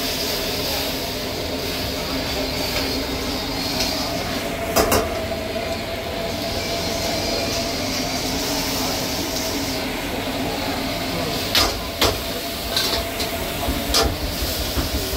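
Commercial gas wok burner burning with a steady rush under a steel wok, the food in the wok sizzling. A metal ladle clanks against the wok about five seconds in and a few more times near the end.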